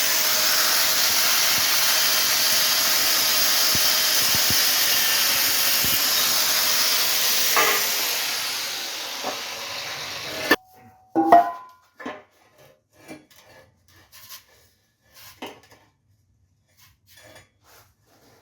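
A power tool cutting through steel exhaust pipe: a steady, harsh hiss for about ten seconds that fades and then stops abruptly. After that come scattered light clicks and knocks of metal parts being handled.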